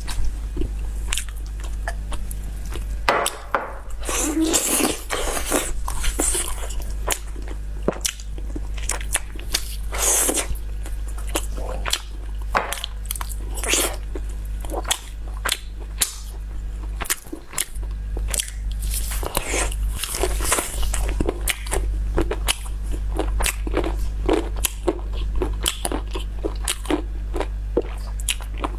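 Close-miked eating sounds: repeated bites, crunches and wet chewing clicks of someone eating spicy food, over a steady low hum.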